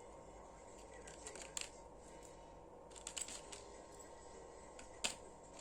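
Scattered light clicks and taps of small plastic toy pieces being handled and set in place, coming in small clusters, with the sharpest click about five seconds in.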